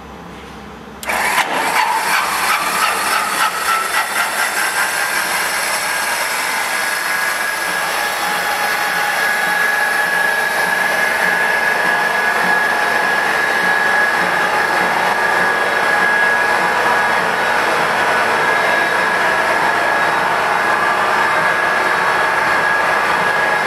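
Starter motor spinning up the compressor and turbine rotors of a J34 turbojet cutaway model, with no fuel or combustion. It is switched on about a second in, and its whine rises in pitch over the next few seconds, then holds steady over a rushing hiss.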